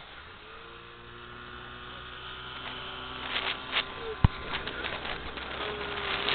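Boat engine running at a steady pitch, heard as a humming drone, with wind and water noise building from about three seconds in. A single sharp knock comes just after four seconds.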